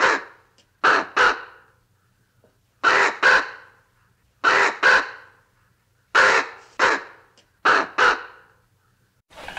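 Common raven calling: short croaks in pairs, a pair about every second and a half.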